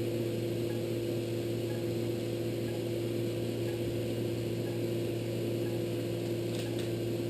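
Steady machine hum with a few fixed tones, with a couple of faint clicks near the end.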